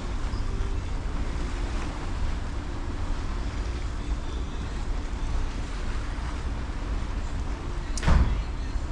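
Sea water rushing along the hull of a slowly moving cruise ship, under steady wind on the microphone and a low rumble. A brief thump comes near the end.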